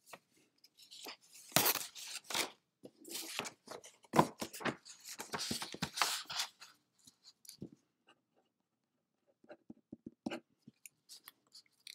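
Sheets of paper rustling and crackling as they are handled and moved to a fresh page, then a few light pen taps and scratches on paper near the end.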